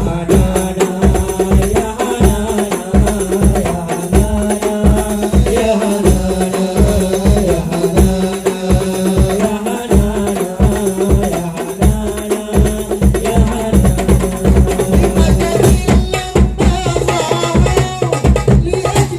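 Hadroh ensemble of Indonesian hand drums (rebana frame drums with a deep bass drum) playing a steady, driving rhythm of several strokes a second, with a melodic line running over the drumming.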